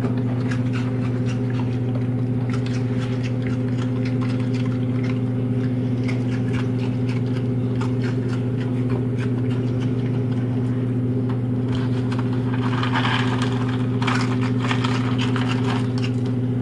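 A raccoon crunching and chewing Fruit Loops cereal: many small crisp clicks, denser and louder toward the end. Under it a loud, steady low machine hum.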